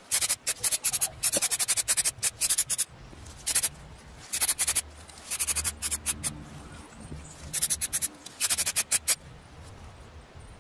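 Aerosol spray paint can laying a coat on metal telephone bell parts: quick runs of short, sharp hissing bursts, several a second, in clusters with gaps between them.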